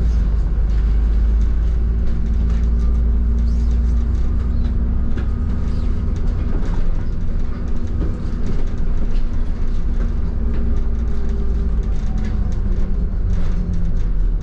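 Inside a double-decker bus under way: a steady low rumble and drone from the engine and the road, with frequent rattles and clicks from the bus body.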